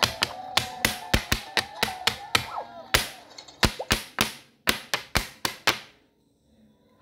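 Cartoon celebration sound effect for a "Well done!" reward screen: a string of sharp pops, about two to three a second, with a few short gliding tones over the first three seconds, stopping about six seconds in.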